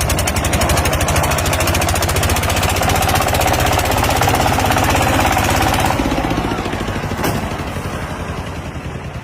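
A machine running with a rapid, even knocking, many strokes a second, like a power hammer; about six seconds in it turns quieter and fades.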